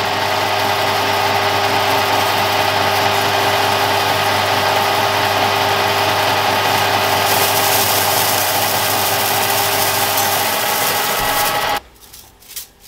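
Harrison M300 metal lathe running under load while an indexable turning tool takes a 5 mm deep cut in 6061 aluminium bar, a steady loud machine hum with held tones. Near the end the lathe stops abruptly, leaving light rattling as the long curly aluminium chips are handled.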